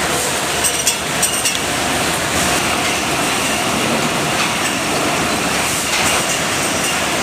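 Egg-packing conveyor line running with a steady mechanical clatter, with a few sharp clicks about a second in.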